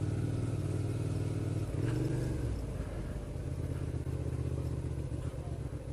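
Motorcycle engine running at low speed in traffic. It rises briefly about two seconds in, then settles back to a steady, slightly quieter note.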